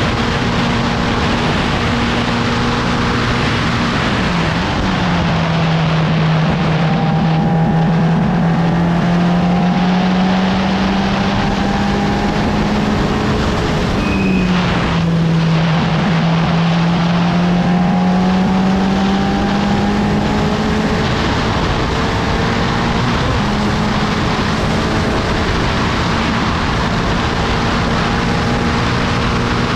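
Engine of a 750 Formula single-seater racing car at speed, heard on board over a steady rush of wind and road noise. Its pitch drops about four seconds in and again around fourteen seconds, climbing slowly back up after each drop.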